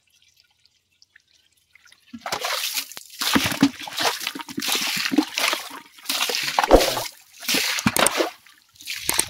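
Water splashing in repeated bursts, about one a second, starting about two seconds in.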